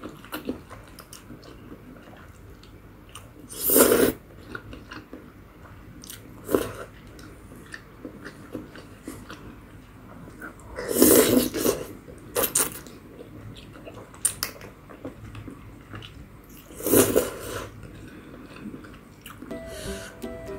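Close-miked eating of instant ramen: noodles slurped loudly three times, each for about half a second to a second, with soft chewing and mouth clicks in between.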